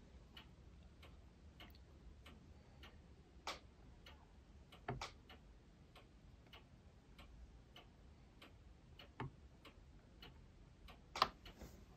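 Faint, irregular clicks and ticks of tweezers against the plastic model as a tiny figure is set in place, with a few sharper ticks among them, over near silence.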